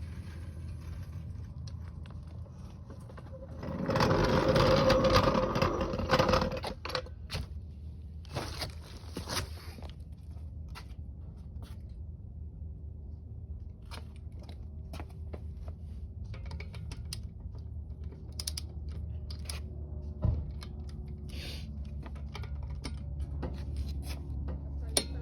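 Tools and car parts being handled: scattered metal clicks and knocks, with a louder scraping noise about four seconds in that lasts some three seconds and a shorter one a few seconds later.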